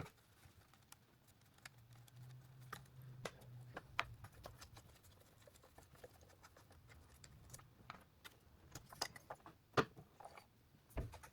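Faint scattered clicks and light knocks of objects being handled, with a low hum for a couple of seconds near the start.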